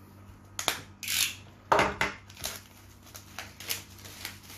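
Snap-off utility knife scraping and cutting the clear plastic shrink-wrap on a small cardboard box, with a sharp knock about two seconds in, then the wrap rustling as it is pulled off the box.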